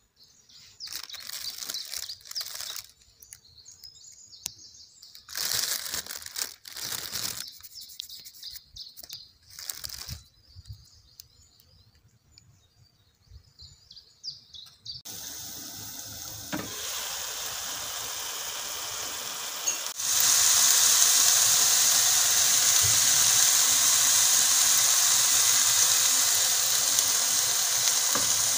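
Chopped nettles frying in a pan, a steady sizzle that starts quietly about halfway through and turns loud and even about two-thirds of the way in, as beaten egg goes into the pan. Before it come intermittent rustling and handling noises.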